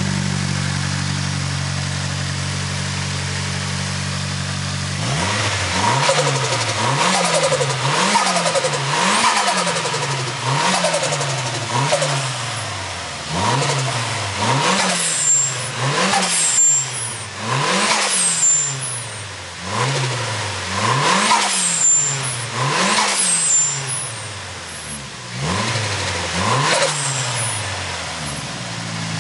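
Nissan SR20DET turbo four-cylinder idling steadily, then blipped over a dozen times in quick succession, each rev rising and falling, before settling back to idle near the end. Through the middle revs a short high hiss follows each throttle lift: the TRUST Greddy Type-S blow-off valve venting boost.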